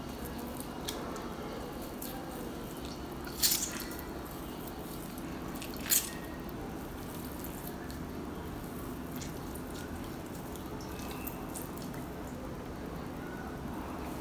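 Liquid dripping and trickling from a squeezed cloth bag of cooked flaxseed and rice into a bowl as it is strained. Two sharp, louder clicks stand out about three and a half and six seconds in.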